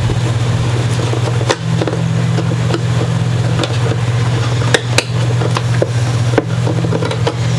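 A steady low hum, with scattered light clicks and taps from a guitar and its plastic pickguard being handled.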